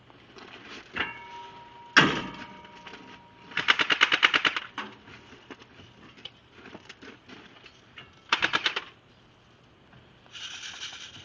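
Airsoft guns firing on full auto: rapid bursts of about ten shots a second, the loudest lasting about a second, a shorter one later and a fainter one near the end. A single sharp crack comes about two seconds in.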